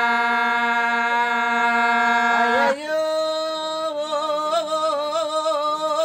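A man singing a Telugu devotional folk song unaccompanied, holding one long steady note for nearly three seconds, then moving up to a higher note that he ornaments with quick wavers.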